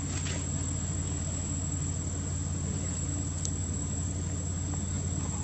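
Steady outdoor background: a low droning hum with a constant high-pitched insect whine above it, and a couple of faint ticks.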